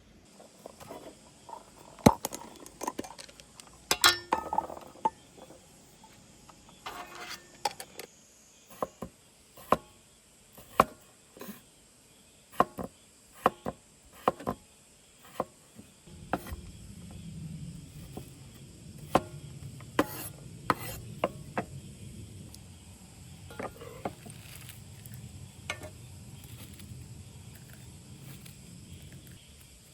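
Scattered clicks, knocks and light clinks of hard objects being handled. About halfway in, a steady low hum starts and continues under the clicks.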